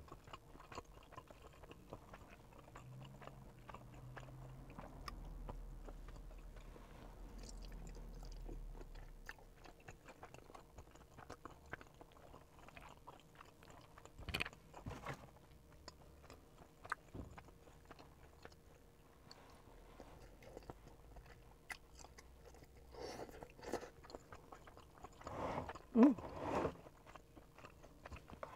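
Close-miked chewing of chewy Korean rice cakes and fish cake in spicy sauce, with wet mouth sounds and occasional sharp clicks. A louder burst of eating sounds comes near the end.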